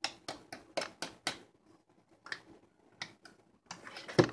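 A metal utensil tapping and knocking against a ceramic mixing bowl while stirring chocolate sauce: a quick run of light clicks in the first second and a half, then scattered taps and one louder knock near the end.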